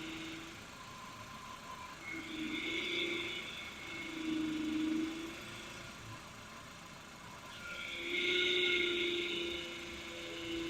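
Power-steering vane pump whining as the steering wheel is turned, a high whine over a lower moaning tone that swells and fades several times, loudest near the end. It is the noise of a pump that has drawn in air.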